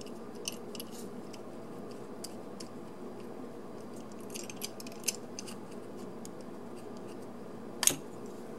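Small clicks and scrapes of a plastic model-locomotive shell being worked off its die-cast frame and weight by hand, with a sharper click near the end, over a steady low hum.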